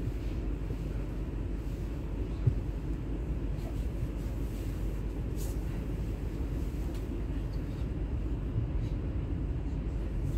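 ES2G electric multiple unit running, heard from on board as a steady low rumble, with a single short click about two and a half seconds in.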